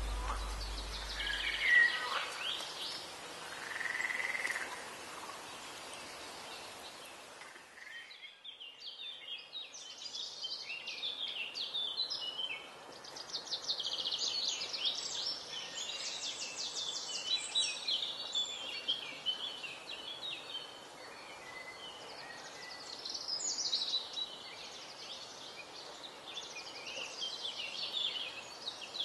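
Wild birdsong from several birds over a faint steady hiss. About eight seconds in it changes abruptly to a denser, higher chorus of chirps, including a rapid trill a few seconds later.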